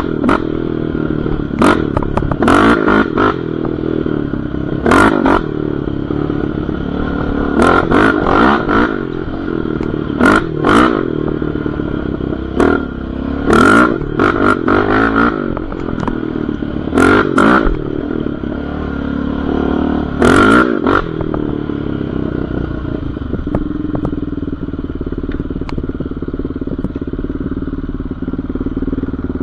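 Yamaha Raptor 700R's single-cylinder four-stroke engine revving up and down hard on a dirt trail, with repeated short sharp clatters over the engine. In the last several seconds the engine settles to a steadier, lower run.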